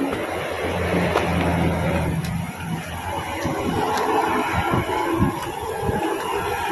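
Road traffic: a motor vehicle's engine gives a steady low hum for about two seconds, then gives way to shifting traffic noise.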